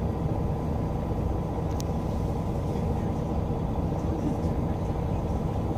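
Steady low rumble of a city bus's engine and tyres, heard from inside the bus as it drives, with one brief click a little under two seconds in.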